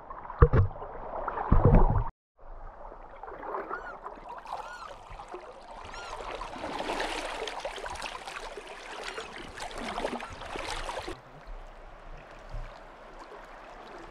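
River water rushing, splashing and gurgling close to the microphone, with a few loud bumps in the first two seconds and a brief cut to silence just after.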